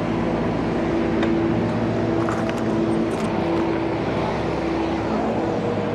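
Motor scooter engine running at a steady pitch while riding slowly through street traffic, with a few light clicks.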